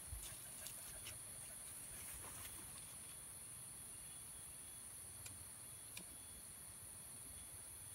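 Steady high-pitched drone of an insect chorus, with a few faint light clicks from dry twigs being handled.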